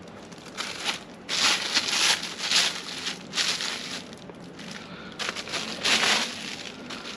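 Packaging crinkling as it is handled, in about half a dozen irregular bursts of rustling.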